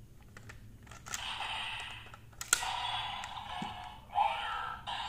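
Plastic clicks from the DX Magnum Shooter 40X toy gun being worked into handgun mode, then the toy's electronic sound effects from its built-in speaker: a hissing effect from about a second in, a sharp click about halfway, and another burst of sound near the end.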